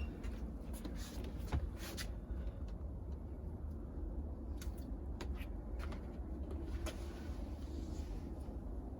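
Light rustling and scattered small clicks and knocks of hands working through tomato plants and handling picked tomatoes, over a steady low rumble.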